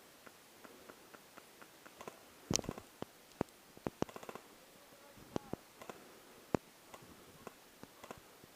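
Faint, irregular clicks and snaps, with a few sharper cracks standing out about two and a half, three and a half, five and a half and six and a half seconds in.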